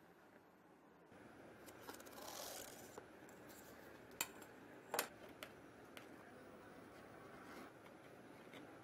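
Quiet handling of a leather sneaker on a worktable: soft rubbing and scraping, with two sharp clicks about four and five seconds in.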